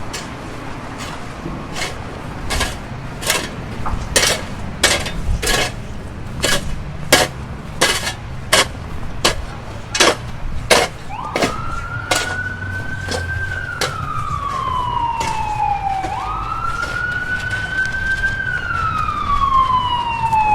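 Footsteps on snow about twice a second, then, about halfway through, an emergency vehicle siren wailing in two slow rise-and-fall cycles.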